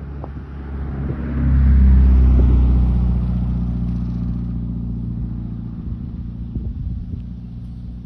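An engine running at a steady speed, a low drone that swells quickly about one and a half seconds in, then slowly fades.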